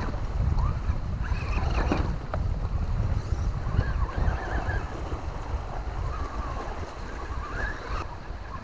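Wind buffeting the microphone in a heavy low rumble, over the faint whine of an RC rock crawler's electric motor and gears rising and falling as it crawls up the rock, with a brief knock about two seconds in.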